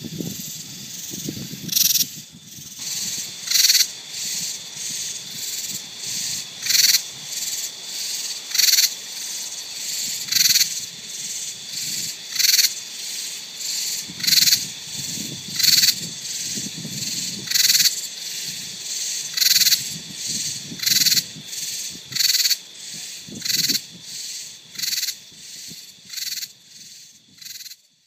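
A chorus of katydids calling: short, harsh high-pitched calls that repeat every second or two from several insects, louder and softer ones overlapping and alternating, over a steady faint high tone.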